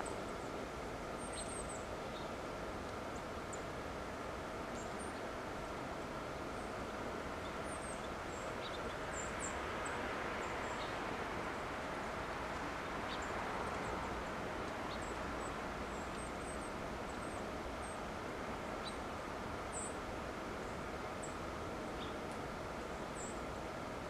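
Outdoor background noise with a faint steady hum, and small birds giving brief high chirps every second or so throughout.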